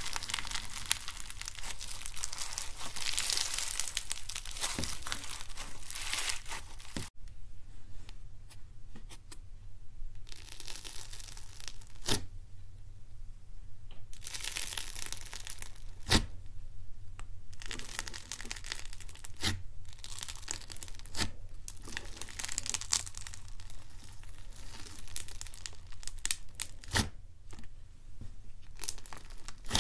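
Slime being stretched and squeezed by hand: dense crackling of foam-bead slime (floam) for the first several seconds, then after a sudden break, stretches of squishing and crackling of clear and white slime pressed in a bowl, with sharp pops now and then.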